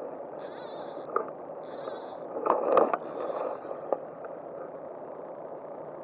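Steady rush of a flowing river. High short chirps repeat about once a second and stop about three and a half seconds in. About two and a half seconds in there is a brief louder scuffing noise with a few sharp clicks.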